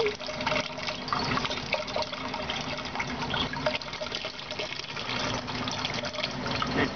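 Water running and splashing steadily, with many small splashes and drips.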